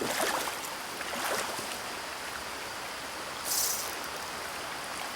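Stream water running steadily, with a few splashes in the first second and a half and a short sharp hiss about three and a half seconds in.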